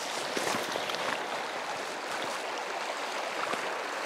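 Steady rushing of a shallow river flowing over a rocky riffle.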